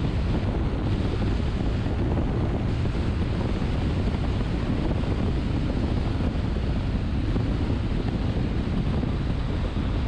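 Steady rush of wind and tyre noise from a car cruising at expressway speed, heaviest in the low end, with wind buffeting the microphone.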